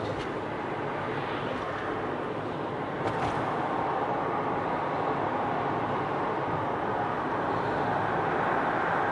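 Car's road and tyre noise heard inside the cabin, a steady rush that gets louder about three seconds in as the car enters a road tunnel.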